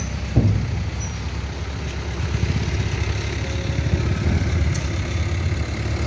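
Heavy diesel engine running steadily with a low throb, growing a little louder from about two seconds in. A short knock sounds about half a second in.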